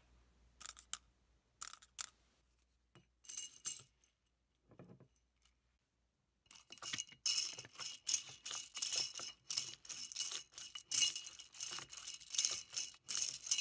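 Hard, clear fake-ice crystals clinking against each other and a glass tumbler. It starts as a few separate clinks, then about halfway through becomes a dense, continuous rattle as a straw stirs the crystals around the glass.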